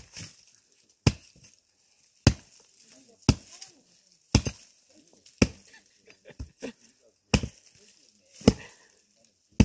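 Pickaxe striking into rooty hillside soil, about one heavy blow a second, as the ground around a shrub's roots is dug out.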